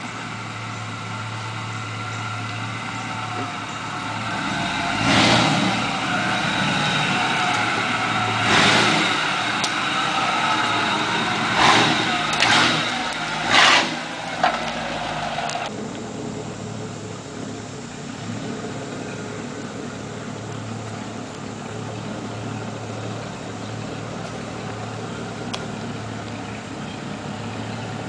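Chevy 1500 pickup's V8 engine running as the truck drives past on a dirt track, louder as it comes close. Several short, sharp bursts of loudness come about a second or two apart as it nears. The sound drops off suddenly once it has passed, leaving a quieter steady engine.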